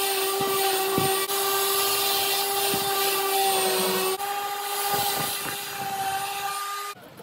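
Random orbital sander running with a steady whine while sanding the edge of a cured epoxy resin and wood block, the pitch dipping slightly under load partway through. It switches off abruptly near the end.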